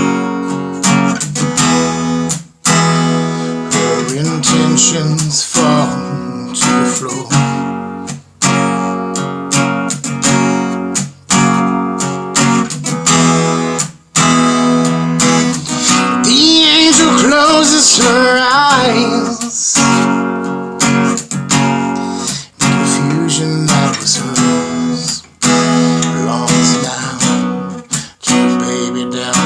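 Acoustic guitar strumming chords, with brief breaks every few seconds and a wavering melody line around the middle.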